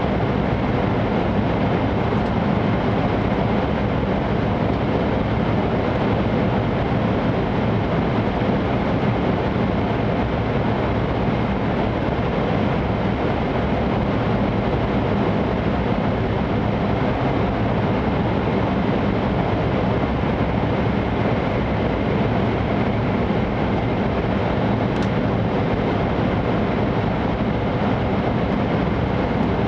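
Steady interior running noise of an E5 series Shinkansen at speed, heard inside the passenger cabin while the train runs through a tunnel: an even, unchanging rush of rail and air noise with no breaks.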